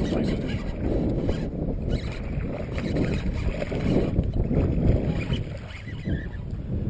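Wind buffeting the microphone with a steady low rumble, over water splashing as a hooked largemouth bass is fought in toward the bank.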